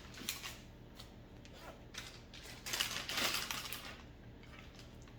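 Plastic zipper storage bag rustling and crinkling with small clicks as it is handled, loudest for about a second in the middle.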